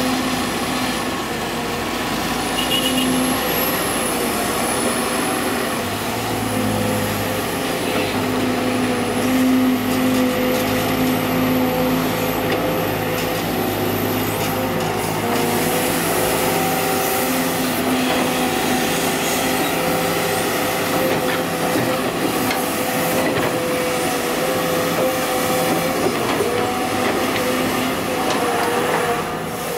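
Heavy diesel engines of a Sumitomo SH210 excavator and dump trucks running steadily under varying load. A wavering high whine comes and goes above the engine sound.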